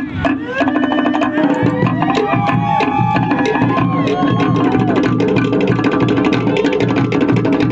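Cook Islands drum music: fast, steady percussion on wooden drums, with gliding pitched sounds over it about two to five seconds in.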